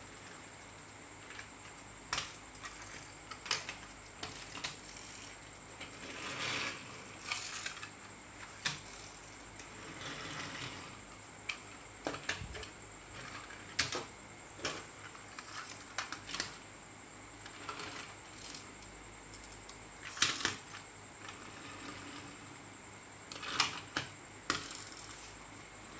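Hands handling a toy bus and its packaging: scattered clicks, taps and short rustles, with louder clatters about two-thirds of the way in and near the end. A faint steady high-pitched whine runs underneath.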